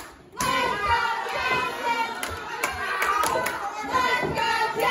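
Small crowd of spectators clapping in scattered hand claps, with several voices shouting over it. The sound drops briefly right at the start.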